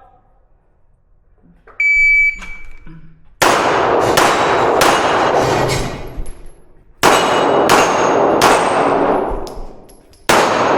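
Shot timer's start beep, a short steady tone about two seconds in, followed by rapid pistol fire from an IPSC competitor: three fast strings of shots with brief pauses between them as the shooter moves between positions.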